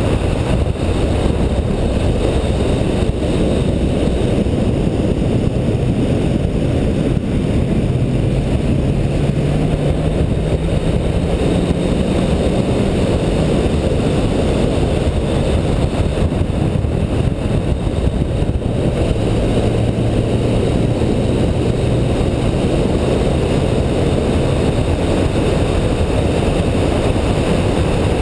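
Car driving fast on a race track: a steady loud rush of wind and road noise with the engine running under it. The engine note climbs a little about a third of the way in, then drops away.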